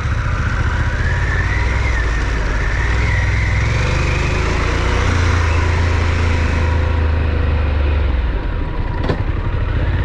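Harley-Davidson Pan America's 1250 cc V-twin engine running as the motorcycle is ridden off-road, with a rushing noise above it that thins out about seven seconds in. The engine note grows stronger past the middle and eases near the end, where a single sharp click is heard.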